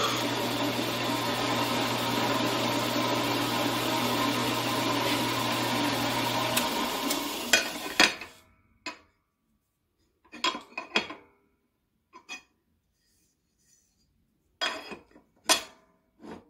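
4x6 bandsaw running while cutting a thin aluminum plate; its motor hum stops about six and a half seconds in and the blade winds down over about a second. After that come a dozen or so short, sharp metal clanks and knocks, some in quick pairs, as the aluminum piece is handled at the saw's vise.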